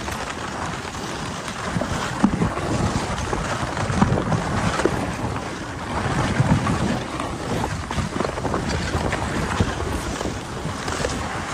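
Dog sled gliding over packed snow: a continuous rushing scrape of the runners, with small irregular knocks and rattles from the sled. Wind buffets the microphone throughout.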